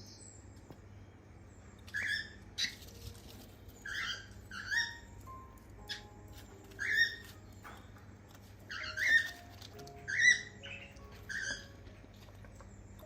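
Cockatiels calling: about ten short, shrill chirps with several overtones, starting about two seconds in and coming at irregular intervals, some in quick pairs.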